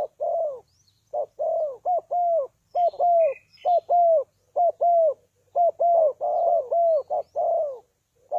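Spotted doves cooing: a fast, unbroken run of short coos, each falling in pitch at the end, about two or three a second and sometimes overlapping. Faint high chirps of smaller birds sound behind them.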